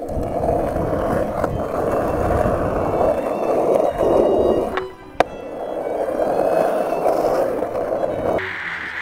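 Skateboard wheels rolling fast down an asphalt hill, a steady rumbling roll that dips briefly about five seconds in, with a single sharp click just after. Music comes in near the end.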